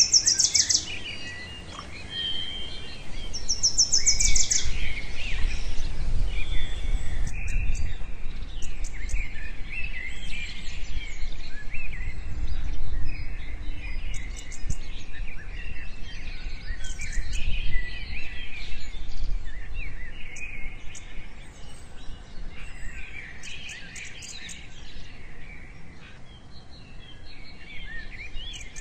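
Birds chirping and twittering continuously, with several rapid high trills early on, over a low rumble.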